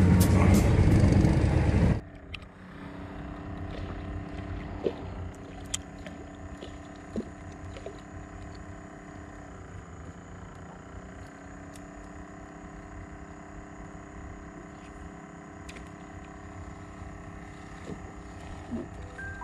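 Background music for the first two seconds, then cuts off. After it a steady motor hum, like a boat engine running, with a few small clicks of fishing tackle being handled.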